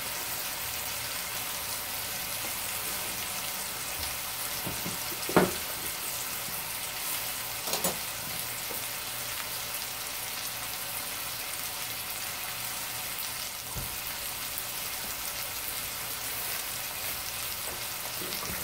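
Two pork chops frying in a cast iron skillet, a steady sizzle. A sharp knock about five seconds in and a smaller clatter near eight seconds cut across it.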